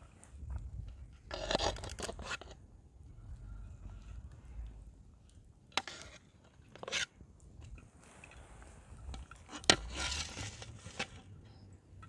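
Metal skimmer scraping cooked rice out of a steel pot and tipping it onto a metal tray: a few separate scrapes and clinks, with a sharp metal clink about ten seconds in, the loudest sound, followed by another scrape.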